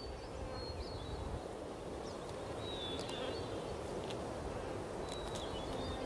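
Steady outdoor background noise with a few faint, short high bird chirps and light ticks scattered through.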